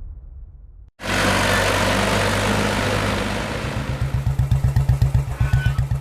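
Intro music fades out, then after a brief gap an engine runs under heavy wind or road noise. About three seconds later a steady low chugging beat comes up, roughly six pulses a second.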